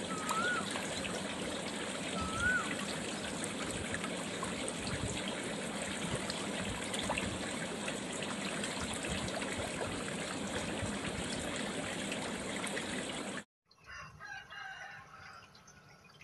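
Steady trickling and splashing of water in an aerated goldfish tank, with a short whistled bird call twice near the start. About thirteen seconds in the sound cuts off, then comes back quieter with scattered dripping water.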